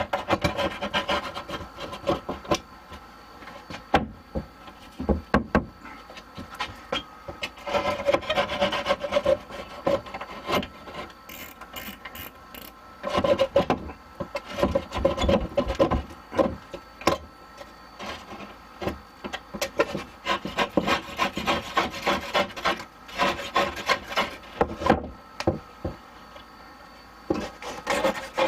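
A knife sawing and rasping through glass-mat gypsum tile backer board in repeated rough strokes, used in place of a drywall saw to cut an opening in the board.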